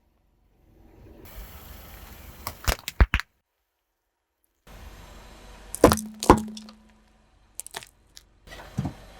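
Hard objects cracking and breaking under a car tyre. A quick run of sharp cracks comes a little over two seconds in, then, after a short silence, two loud cracks come around six seconds in, followed by a few smaller snaps.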